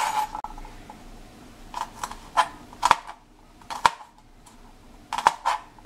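Kitchen knife slicing peeled garlic cloves on a plastic cutting board: about seven sharp taps of the blade on the board, spaced irregularly.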